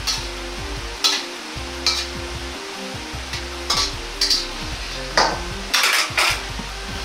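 Metal wok turner scraping and tapping against an iron Chinese wok while an omelette is folded over fried rice: about nine short strokes, several close together near the end.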